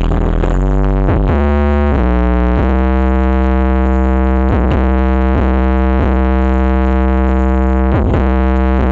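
DJ dance track played very loudly through a large BMS Audio sound system. Heavy bass and held synthesizer chords change about once a second over a steady beat.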